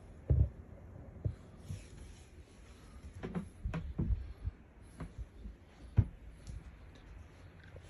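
A string of dull, irregular low thumps and knocks, loudest about half a second in and again about six seconds in, with a cluster in between.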